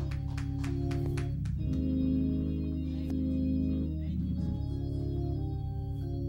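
Organ playing sustained chords that change every second or so, with a few sharp clicks near the start.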